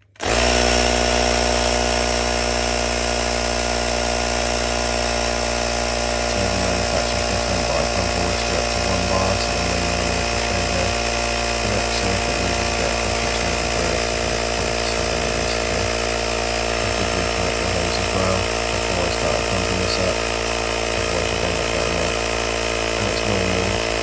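Regin electric pump running steadily as it pumps air into a combi boiler's expansion vessel, recharging a vessel whose air charge had gone flat.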